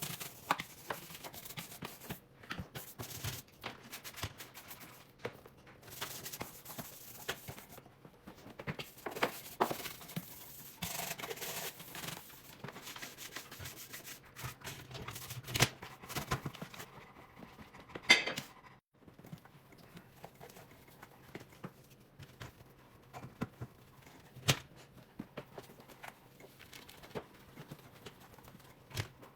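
Dishwasher being hand-cleaned: intermittent scrubbing and rubbing with scattered clicks and knocks. The sharpest knock comes about 18 seconds in and rings briefly.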